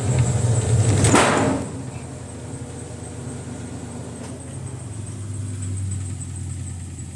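Brastemp BWK12 washing machine's motor and gearbox running with a steady low hum, a louder noisy surge about a second in, then the hum carries on more quietly. The noise comes from a faulty gearbox: the machine runs but does not wash.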